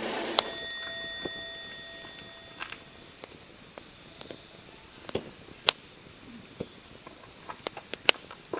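A sharp metallic clink that rings on for about two seconds, followed by scattered light clicks and taps.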